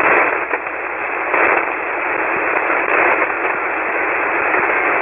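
Steady static hiss from a shortwave ham radio receiver tuned to 40-metre single-sideband, band noise with no station transmitting, narrowed to a thin hiss by the receiver's filter, with a few faint crackles.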